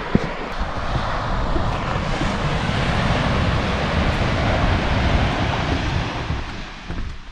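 Wind rumbling on the camera microphone over a steady rush of surf, with one sharp knock just after the start.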